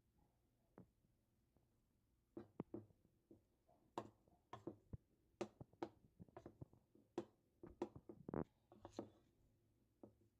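Faint, irregular clicks and light knocks of kitchen utensils and dishes being handled, starting about two seconds in.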